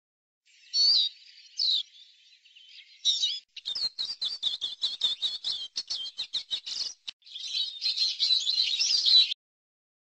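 Eurasian siskin song: a twittering run of high notes, then from about three and a half seconds in a fast series of short chattering notes, and a dense warble near the end that stops abruptly.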